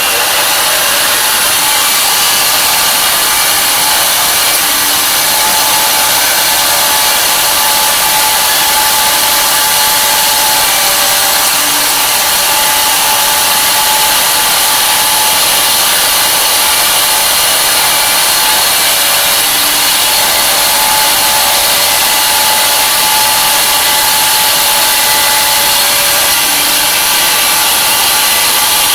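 Tree Journeyman 250 CNC milling machine running while cutting an aluminum wheel: a loud, steady whirring hiss with several steady whining tones.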